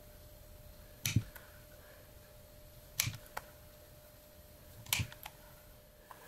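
Rotary leather hole punch pliers snapping through leather three times, about two seconds apart, each sharp snap followed by a fainter click.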